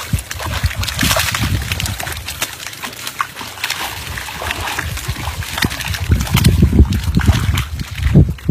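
Irregular sloshing and splashing of muddy water, with many short wet slaps.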